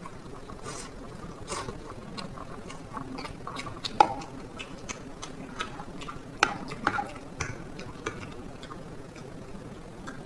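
Close-up eating sounds of black bean noodles with a fried egg: many small, scattered wet clicks and mouth sounds, with two sharper clicks about four and six and a half seconds in.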